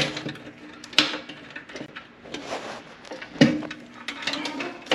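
Scattered small clicks and knocks of hands working at a washer's lid switch, pulling its two wire connectors off the terminals; the loudest knock comes about three and a half seconds in.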